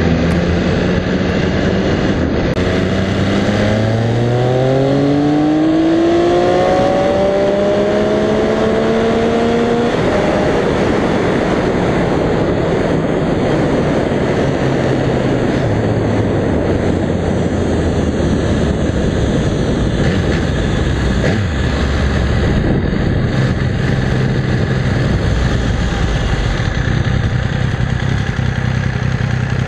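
Sportbike engine accelerating, its pitch rising over several seconds, then giving way to a steady rush of wind and road noise at speed.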